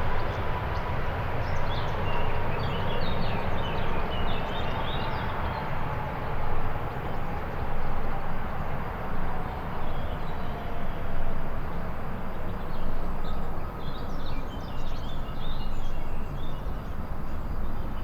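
Embraer E195 airliner's turbofan engines heard from a distance after landing: a steady low rumble with a thin whine slowly dropping in pitch over the first ten seconds as the engines spool down. Birds chirp twice, briefly.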